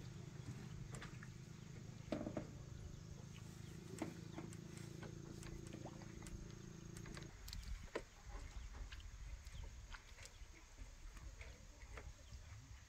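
A faint low steady hum that cuts off suddenly about seven seconds in, with scattered light knocks and creaks from bamboo poles as a man walks along a lashed bamboo fish-pen frame.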